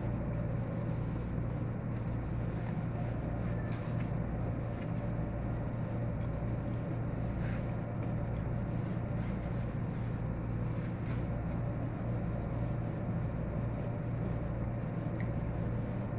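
Steady low hum of an electric fan running, with a few faint clicks from a knife working watermelon rind.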